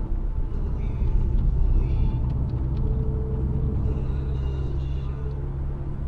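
A car driving on a paved road, heard from inside the cabin: a steady low rumble of engine and tyres.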